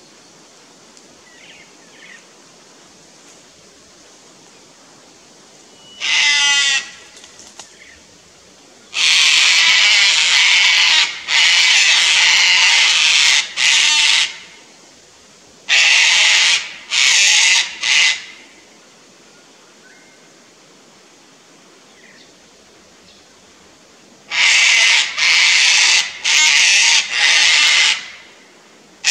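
Sulphur-crested cockatoos screeching, harsh loud calls in several bouts with quiet gaps between. These are alarm screeches at a lace monitor in a tree next to their nest tree.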